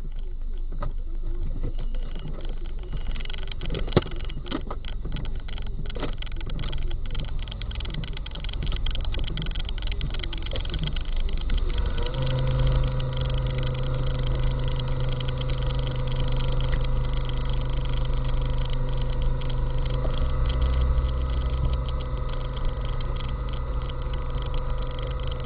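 Motor vehicle engine running steadily while stopped, with scattered clicks and knocks in the first half; about halfway through a steady droning tone sets in and holds.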